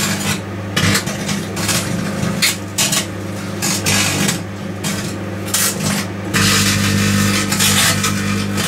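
Microwave oven running with its steady hum while aluminium foil tape inside arcs, giving irregular bursts of crackling sparks that become one continuous crackle about six seconds in.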